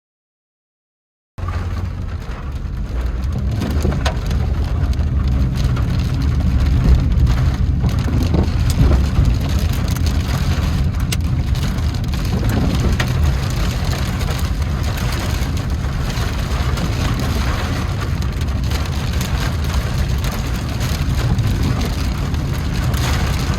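Heavy rain drumming on a moving car, with a dense patter of drops over a steady low rumble from the car and road. It starts after about a second and a half of silence.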